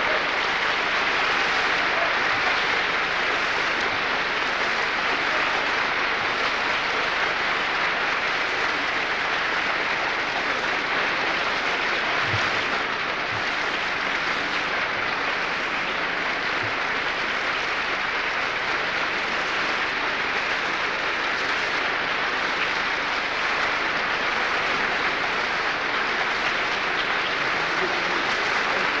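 Large audience applauding steadily, a dense even clatter of many hands clapping.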